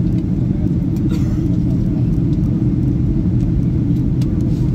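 Airliner cabin noise: the steady low drone of the jet's engines and airflow, with a few faint clicks over it.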